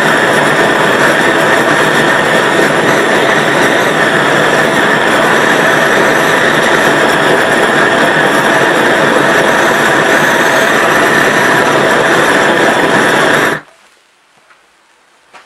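Large gas torch burning steadily with a loud hiss, its flame trained on a charring apple half. It shuts off abruptly near the end.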